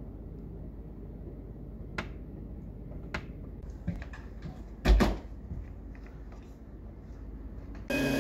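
A low rumble with a few sharp knocks and one loud thump about five seconds in. Near the end an upright vacuum cleaner switches on suddenly and runs with a steady whine.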